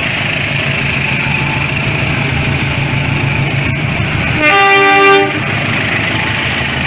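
Train horn of an Indonesian railway diesel locomotive sounding one short, steady blast of just under a second, about two-thirds of the way in, over a steady low rumble.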